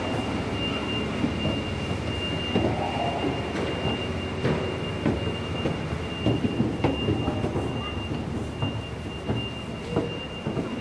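Steady low machinery rumble of a catamaran ferry's enclosed car deck, with a thin high whine held above it. Irregular footsteps knock on the metal stair treads.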